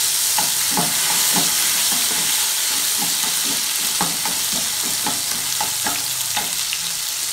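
Chopped tomato sizzling in hot mustard oil in a non-stick kadai (wok), with a steady hiss. A metal spatula scrapes and knocks against the pan as it stirs, about two strokes a second.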